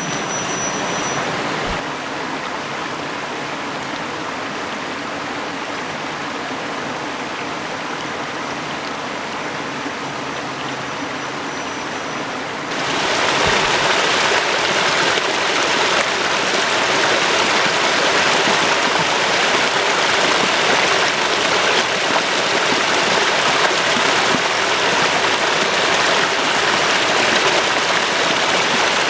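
Shallow creek water rushing over rock slabs, a steady hiss that suddenly becomes louder and fuller about thirteen seconds in.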